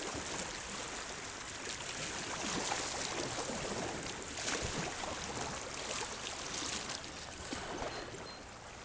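Lower Salt River running at a low flow of about 300 cubic feet per second, water rushing and gurgling over rocks around a kayak with small splashes. It swells a little in the middle and eases off near the end.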